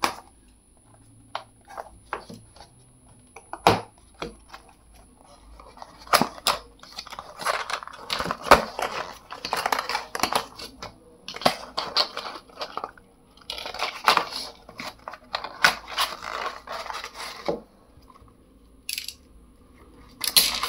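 Snap-off utility knife cutting the seal of a small cardboard box: a few sharp clicks at first, then a long stretch of blade scraping and cardboard rustling from about six seconds in. It ends with a short rustle of cardboard flaps being opened near the end.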